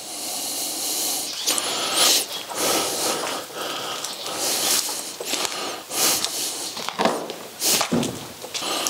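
Footsteps scuffing and crunching over a gritty, debris-strewn floor at an irregular walking pace, each step a short scratchy burst over a steady hiss.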